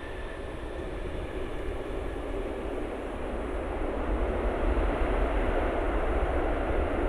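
Jet engine noise of an Airbus A330-300 airliner: a broad roar with a deep rumble, growing steadily louder.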